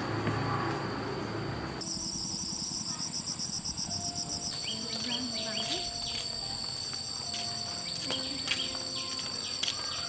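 Insects trilling in steady high-pitched tones, one of them pulsing rapidly for a while. A rumbling noisy background stops abruptly about two seconds in, and a few sharp clicks come near the end.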